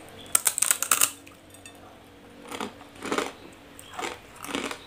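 Biting into a block of dry, uncooked instant noodles, a quick cluster of sharp brittle crunches about half a second in. This is followed from about two and a half seconds by crunchy chewing of the dry noodles, about two chews a second.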